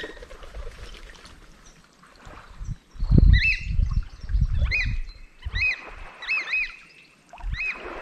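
Oystercatchers calling: short, sharp piping notes, singly and in pairs, starting about three seconds in, over intermittent low rumbling.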